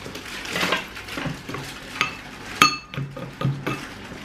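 Metal spoon stirring and knocking against a glass bowl of gazpacho, a run of small clinks, with one sharp ringing clink about two and a half seconds in.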